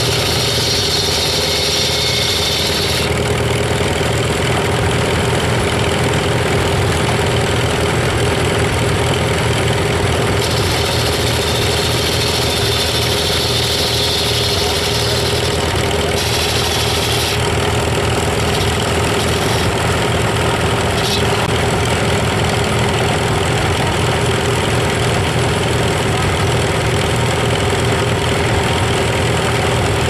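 Antique belt-driven circular sawmill running, with the engine that drives it chugging steadily. Over it, the blade whines higher as it cuts through a log: during the first three seconds, and again in stretches from about ten to twenty-one seconds in.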